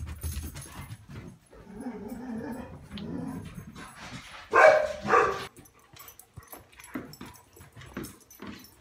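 A dog barks twice in quick succession about halfway through, after some quieter whimpering.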